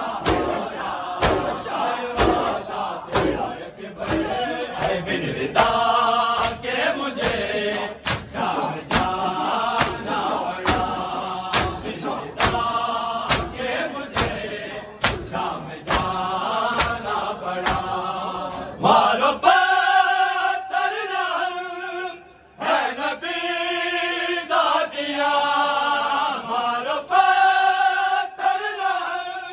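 Crowd of men chanting a noha in unison over rhythmic chest-beating (matam), the hand strikes landing about one and a half times a second. About twenty seconds in, the strikes drop away and a small group of men carries the noha closer and clearer.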